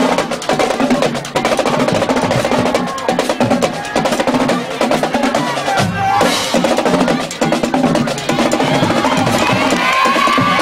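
Marching band drumline playing a cadence: rapid snare drum strokes over bass drums, with crash cymbals.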